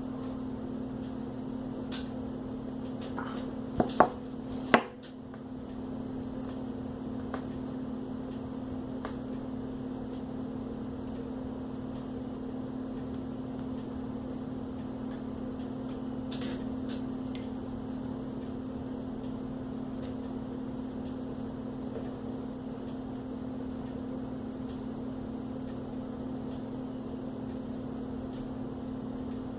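A few sharp clicks from a hand screwdriver and screws against a laptop's plastic screen frame, the two loudest about four to five seconds in, over a steady low hum.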